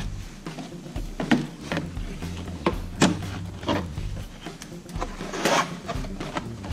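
Cardboard packaging being handled as a box is unpacked: a stiff cardboard insert tapped, bent and pulled against the carton, giving a series of sharp knocks and taps, with a longer scraping rustle about five and a half seconds in.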